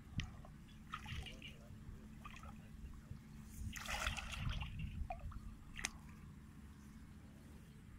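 Irregular splashing and sloshing of shallow muddy water as a person wades through a flooded rice paddy and gropes in the water by hand, with a cluster of louder splashes about four seconds in.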